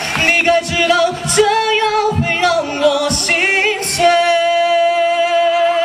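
Amplified solo voice singing the closing line of a Mandarin pop ballad with vibrato over a backing track with a drum beat, ending on one long held note from about four seconds in.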